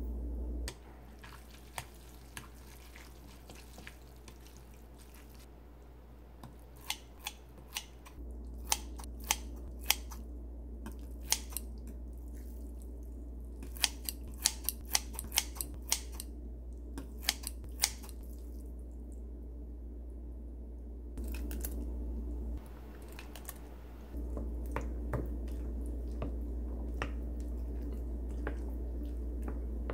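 Kitchen scissors snipping through cooked glass noodles in a bowl, a quick run of sharp snips in the middle of the stretch. Near the end, a wooden spoon stirs the noodles into beaten egg with light, scattered clicks against the bowl.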